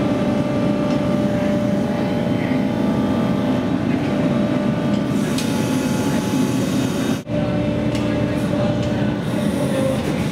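Large power hammer forging red-hot steel, a rapid, continuous run of heavy blows with the machine's mechanical clatter. It breaks off briefly about seven seconds in and resumes much the same.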